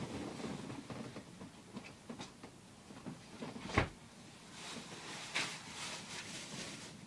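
Rustling and shuffling of a person moving about on a bed, with one sharp knock nearly four seconds in.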